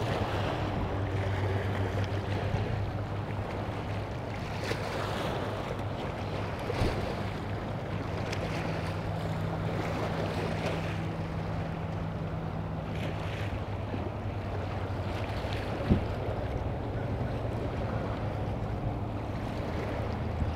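Choppy bay water lapping against a seawall with wind on the microphone, over a steady low hum; a second, slightly higher hum joins from about 8 to 13 seconds in, and there is one short knock about 16 seconds in.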